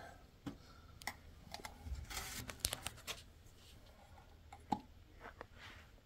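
Faint scattered clicks and rustles of hands working a caulking gun loaded with a tube of silicone sealant. There is a short rustle about two seconds in, and the loudest sound is a single sharp click near the end.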